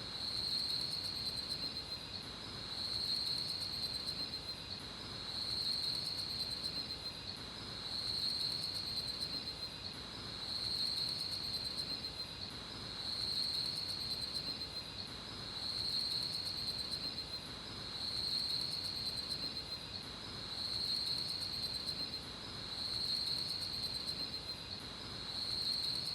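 Insects trilling steadily in the forest in one continuous high chorus, swelling and fading about every two and a half seconds.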